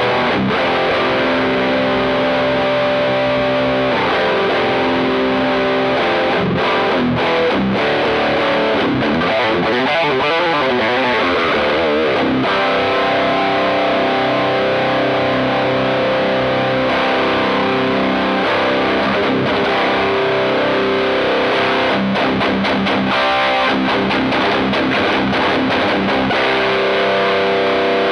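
Heavily distorted electric guitar, an LTD Super Strat with EMG 81 active pickups played through a Fender Hot Rod Deluxe IV 40-watt tube combo set for a metal tone. Sustained chords alternate with fast choppy riffing, with a passage of wavering, bent notes near the middle.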